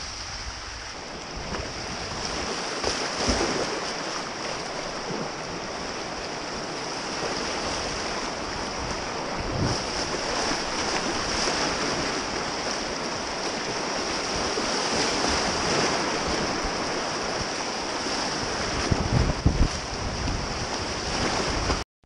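Steady rushing outdoor noise of wind and creek water. A few brief low thumps break through, the loudest near the end.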